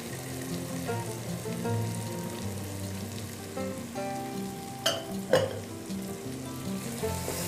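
Potatoes and masala sizzling softly as they fry in a pot while cauliflower florets are tipped in, under background music. Two sharp clicks come about five seconds in.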